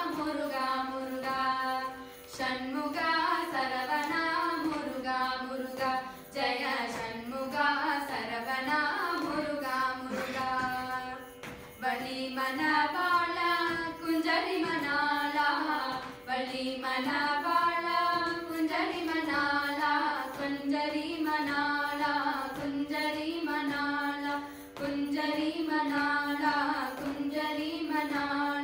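Girls singing a Carnatic devotional bhajan to Murugan in long melodic phrases with short breaks between them, over a steady drone tone.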